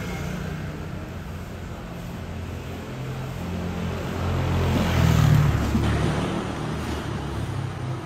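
Street traffic: a passing motor vehicle's engine grows louder, is loudest about five seconds in, then fades away over a low hum of traffic.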